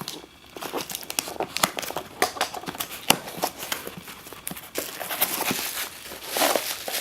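Plastic packaging being unwrapped by hand: irregular crinkling and rustling with sharp crackles and some tearing, busiest near the end.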